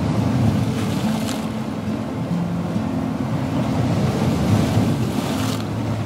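Slow relaxation music: low held notes changing pitch every second or so, over a steady rushing wash like surf that swells twice, about a second in and near the end.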